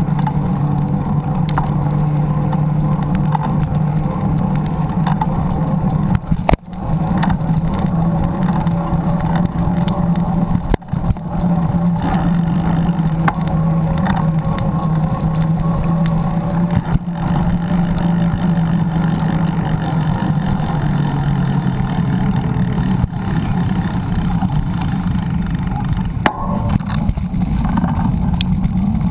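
Wind and road noise on an action camera riding with a mountain bike along paved road, with a steady low hum and motor traffic alongside. The sound cuts out briefly twice, about six and eleven seconds in.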